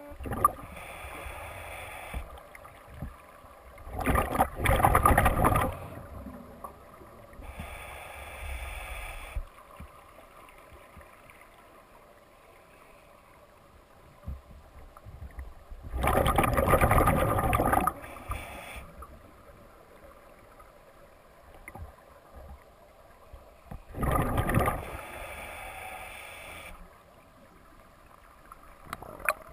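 Scuba diver's regulator underwater: exhaled bubbles rush and gurgle past the camera in bursts every several seconds, the loudest lasting one to two seconds, with quieter stretches between breaths.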